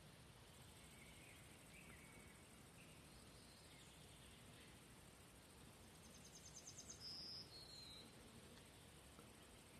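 Near silence with faint bird song: a brief rapid trill and a couple of high whistled notes about six to seven seconds in.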